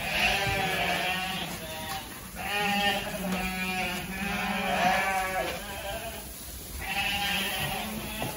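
A flock of ewes bleating loudly, many calls overlapping, in three waves with short lulls between them. It is the excited calling of sheep that are about to be fed grain corn.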